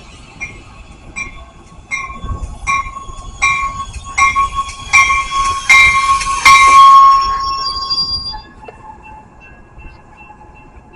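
Metra bilevel commuter train pulling into a station and braking to a stop, with a steady brake squeal and metallic wheel clanks about every three-quarters of a second. The clanks grow louder as the cars come alongside, then the sound dies away about eight seconds in as the train stops.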